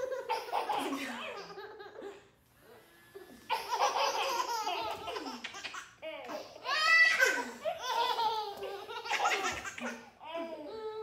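Babies laughing in several bursts of belly laughter, with a woman laughing along.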